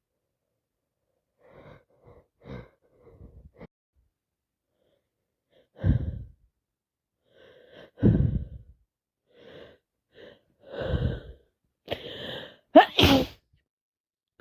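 A woman with a head cold working up to a sneeze: catching, gasping in-breaths that grow louder, then a wet sneeze near the end, the loudest sound.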